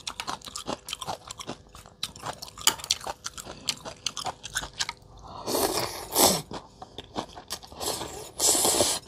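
Close-miked eating of rice-noodle soup: wet chewing and mouth clicks, then two long noisy slurps of noodles, about five seconds in and again near the end.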